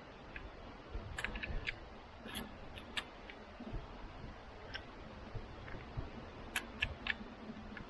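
Light metallic clicks of a lever-action rifle being loaded, cartridges pushed into the loading gate by hand. The clicks come irregularly, a cluster in the first few seconds and another near the end.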